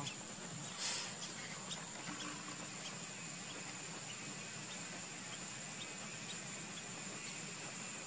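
Steady high-pitched insect drone, with a short, louder burst of noise about a second in and a few faint short chirps scattered through it.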